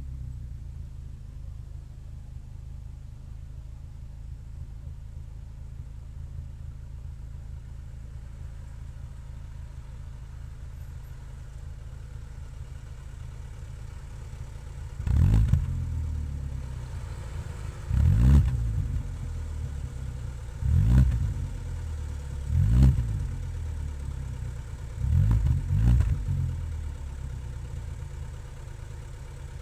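Chevrolet Vectra engine idling with a steady low exhaust rumble, then revved five times in quick blips a few seconds apart in the second half, each rising and falling back to idle.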